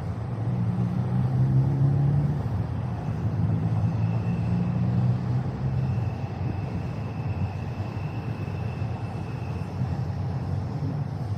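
Steady rumble of passing vehicle traffic on a busy city street, with a thin high whine for about five seconds in the middle.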